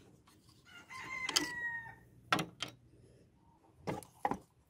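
A rooster crowing once, a held call of about a second, slightly falling. A few short knocks follow as the plastic radiator fan shroud is handled.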